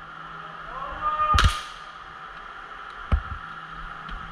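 A faint distant shout answers, then an airsoft gun fires one sharp shot about a second and a half in, followed by a fainter crack near three seconds.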